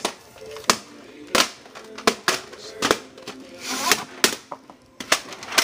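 Plastic VHS cassettes and cases being handled: about ten sharp clicks and knocks at uneven intervals.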